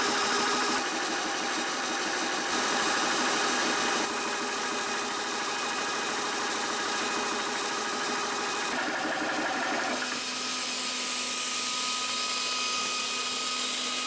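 Talon Tunes 4500 psi portable PCP air compressor running steadily while filling an air rifle, a dense mechanical hum with its cooling fan going. About ten seconds in the compressor cuts off and only the fan's steadier, thinner hum is left.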